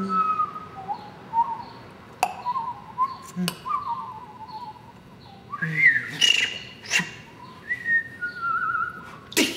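A man whistling short notes that waver and glide, some trilled, broken by sharp mouth clicks; a louder, breathy stretch of whistling comes about six seconds in. It is extended vocal technique in a rehearsed vocal piece.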